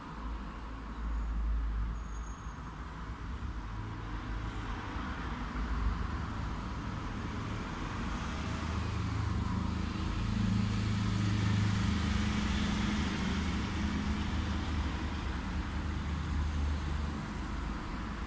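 Light road traffic: a steady low rumble of passing vehicles, with one vehicle's engine hum swelling past about two-thirds of the way through.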